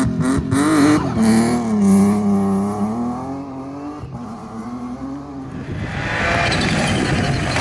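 Rally car engine revving hard, its pitch rising and falling, with rapid cracks in the first second or so. The engine fades, then a loud rising hiss of tyre noise from a car sliding comes in near the end.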